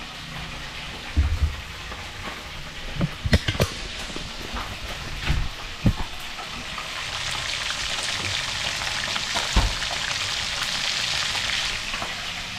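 Fish frying in hot oil in a pan on a gas stove: a steady sizzle that grows louder over the second half. Several dull knocks come through along the way.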